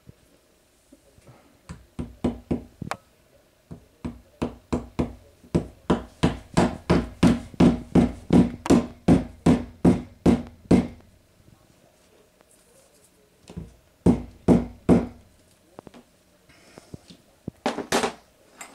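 Hammer blows against the wall by a window: a few scattered strikes, then a steady run of about three blows a second for several seconds, then a few more after a pause.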